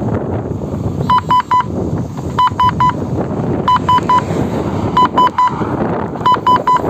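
FIMI X8 Mini low-battery warning beeping: sets of three short, high beeps repeating about every 1.3 seconds, starting about a second in, the alarm for a falling drone battery. Strong wind rumbles on the microphone underneath.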